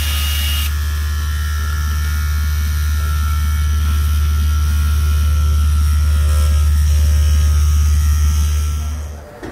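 Eastman Blue Streak II straight-knife cloth cutting machine running with a loud, steady low hum as its reciprocating blade cuts through a stack of fabric layers. The sound cuts off near the end.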